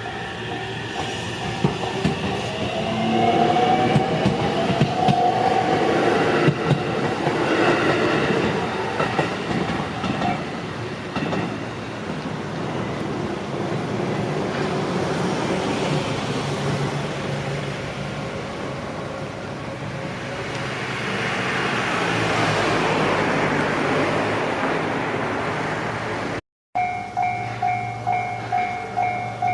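Electric train passing over a level crossing: a rising motor whine with wheels clattering over the rail joints, then a steady rolling noise that swells again later on. Near the end, after a brief break, a Japanese level-crossing warning bell rings about twice a second.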